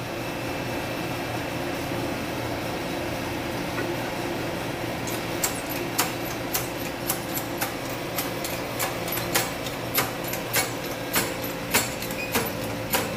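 Hand-pumped hydraulic jack of a shop press being worked, its lever clicking just under twice a second from about five seconds in, as it presses the new wheel bearing and seal onto a Toyota Hilux rear axle shaft. A steady hum runs underneath.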